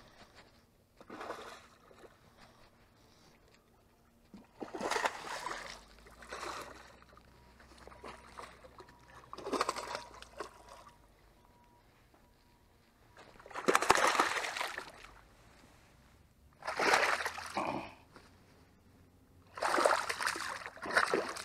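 A hooked bass splashing at the water's surface in a series of short bursts, about eight in twenty seconds, as it is reeled in.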